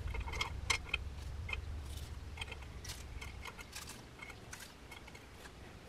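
Small sharp pieces of glassy melted stone clicking and clinking as they are dropped and packed into a bisque-fired clay mold. The light, irregular taps thin out toward the end.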